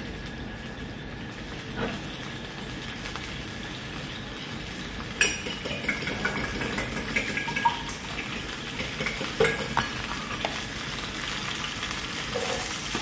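Oil sizzling steadily in a frying pan, with a few sharp knocks of utensils against cookware, the loudest about five seconds in and again about four seconds later.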